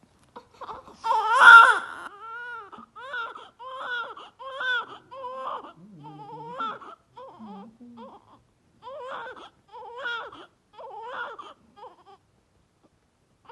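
Newborn baby crying in a string of short, high-pitched wails. The first, about a second in, is the loudest; the rest are shorter and come one after another.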